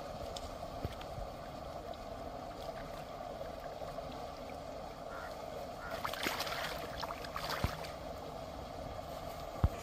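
Small splashes and water sloshing as hands work in shallow pond water, in a cluster about six to seven and a half seconds in, over a steady background drone. One sharp low thump near the end.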